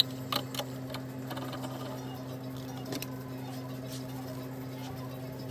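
A few sharp metal clicks and knocks as steel clamps are handled and tightened against a wooden board, over a steady low hum.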